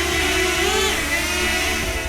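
DJI Flip drone's propellers whining in flight, many high-pitched tones at once, with the pitch swinging up and back down a little before the middle as the motors speed up and settle.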